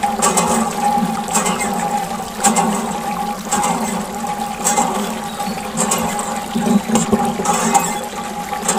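A stream of water from a small tube pouring and splashing onto plastic toy trucks and into shallow water, over a steady hum.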